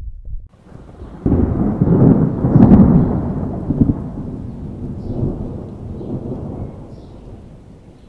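A thunderclap breaks about a second in, rolls loudly for a couple of seconds, then rumbles on and slowly fades away.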